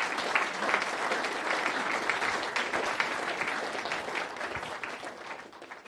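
Audience applauding, many hands clapping together, the clapping dying away near the end.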